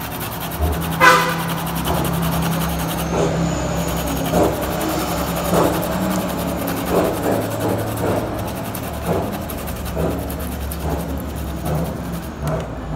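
Fresh ginger root rasped against a metal box grater in repeated strokes, over a steady low hum.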